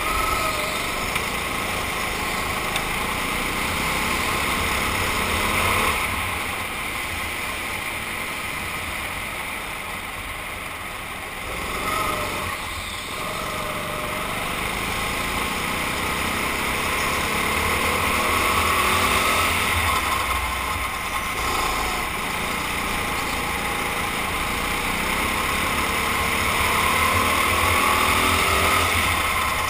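Go-kart engine running hard through laps of an indoor track, its pitch climbing on the straights and falling away into the corners, heard from a helmet-mounted camera.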